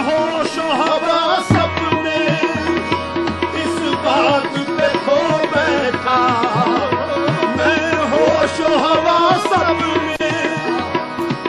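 Qawwali music: tabla drumming in a steady rhythm under a wavering, ornamented melody line.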